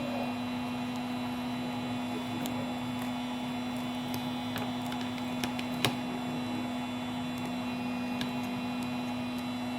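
Steady electrical hum of a small motor or fan, with a few faint clicks as a thin pry tool works between the phone's screen and frame, the sharpest about six seconds in.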